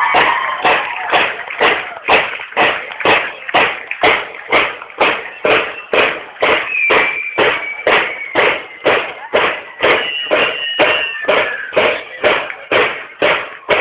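Marching drums of a banda de guerra (Mexican drum and bugle corps) beating a steady parade cadence, about two and a half sharp strokes a second.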